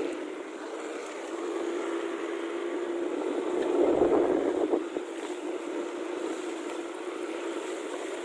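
A small engine running steadily at an even pitch, swelling a little about halfway through.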